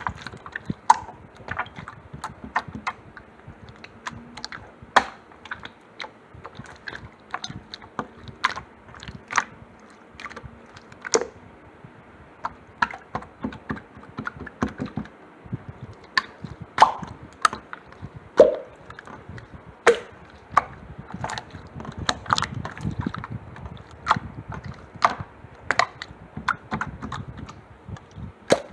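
Slime being squished and poked by hand, making irregular sharp clicks and small pops.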